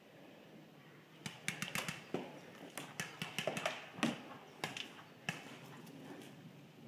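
Footsteps crunching over a dry forest floor of pine cones and twigs: irregular snaps and crunches starting about a second in.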